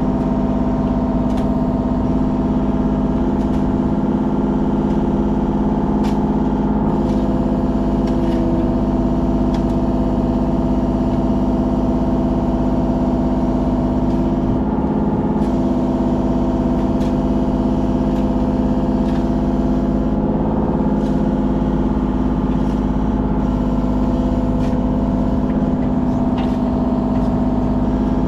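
Kubota KX033 mini excavator's diesel engine running steadily at working speed, with a few faint clicks and knocks here and there.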